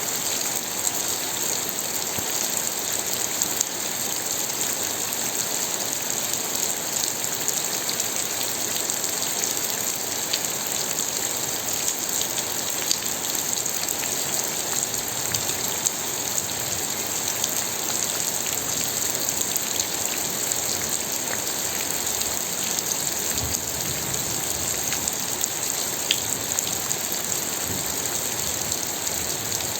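Steady rainfall: a constant hiss of rain with many small drop ticks scattered through it.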